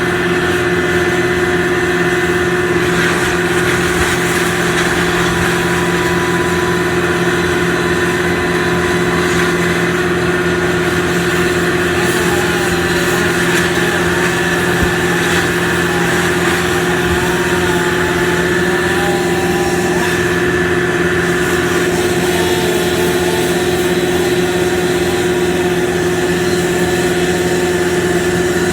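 An engine running steadily at one constant speed, with no rise or fall in pitch.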